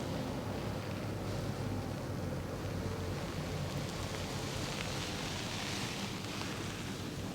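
Fingers working through hair and over the scalp in a dry head massage: a soft rustle that swells for about two seconds past the middle, over a steady low room hum.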